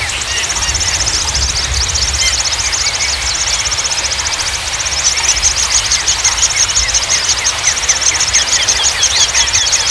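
Songbirds singing over a steady low rush of water: a fast, high trill runs in long stretches broken by brief pauses, with shorter chirps beneath it.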